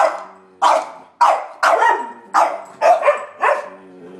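A Sheltie, a Collie and a French bulldog barking in a rapid series of short, sharp barks, about nine in four seconds: alert barking at a squirrel outside.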